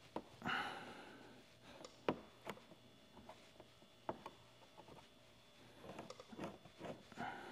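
Quiet handling noises of a squeegee and fingers working wet paint protection film into a bumper edge: a short swish about half a second in, then a few sharp, separate clicks and small taps.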